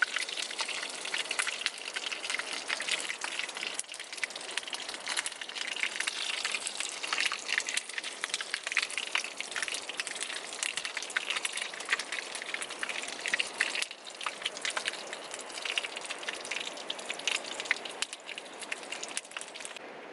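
Chicken frying in hot oil: a steady sizzle full of rapid crackles and pops.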